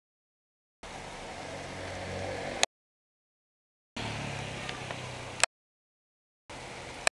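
Heavy rain hissing steadily, with the low hum of traffic on the wet street, heard in three short stretches broken by dead silence. Each stretch ends in a sharp click where the recording cuts.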